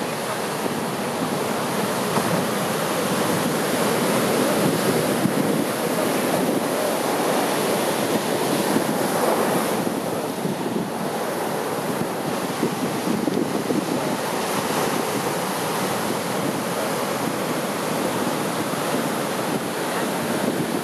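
Surf from a storm swell (ressaca) breaking and washing up the beach in a continuous rush that swells and eases with the waves.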